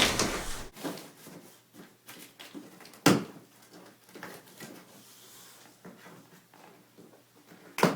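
Cardboard TV box and its packing being handled during unboxing: scattered small rustles and scrapes, with a sharp knock about three seconds in and another near the end.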